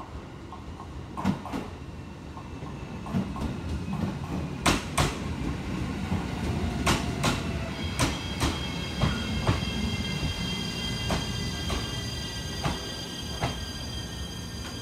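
JR Shikoku 7200 series electric train arriving and slowing past the platform, wheels clacking over rail joints above a low running rumble. From about halfway through, its Toyo IGBT-VVVF inverter whines in several high tones that fall gently as the train brakes.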